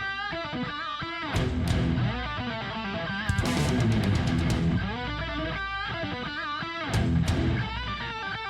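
Background music led by an electric guitar, its notes bending up and down over a steady low backing.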